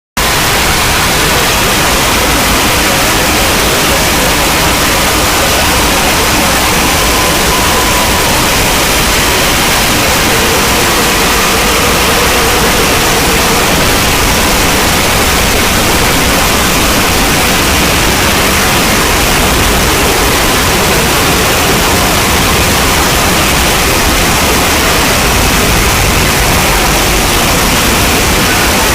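Loud, steady hiss of noise, like static, that stays level throughout, with faint brief tones drifting through it partway in.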